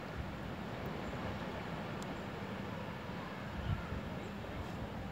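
Steady beach ambience: a low rumble of wind on the microphone with surf washing behind it, and a light bump about three and a half seconds in.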